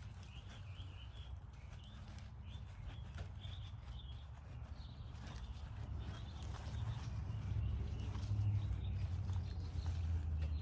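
Small birds chirping in short, wavering calls, over a low rumble that grows louder in the second half.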